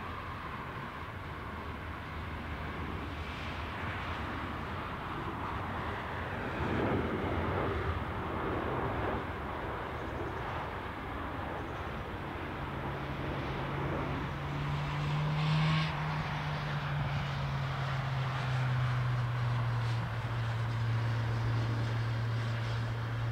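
Jet engines of a Boeing 737-800 on landing approach, a steady rushing noise that swells as it passes, with a low engine hum from about halfway that rises slightly, then sinks a little in pitch.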